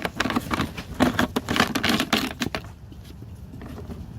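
A quick clatter of clicks and small metallic rattles from tools and parts being handled during disassembly of a diesel heater. The clatter is dense for about two and a half seconds, then quieter.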